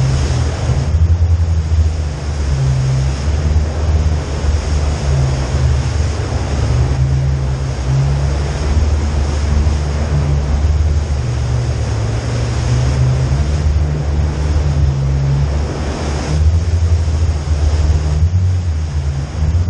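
Off-road Jeep driving slowly through a rail tunnel: a steady low engine drone under a rushing noise of tyres on the wet, rocky floor and wind on the microphone, the rushing swelling and easing every few seconds.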